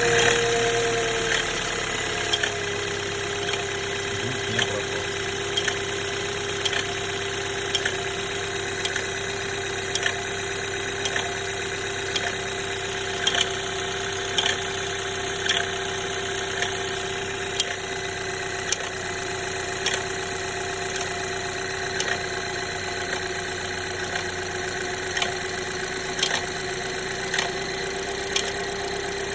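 BMW B48 2.0-litre turbocharged four-cylinder idling on a cold start, its idle dropping slightly about two seconds in. A sharp click sounds about once a second throughout, which the owner traces to the turbo wastegate.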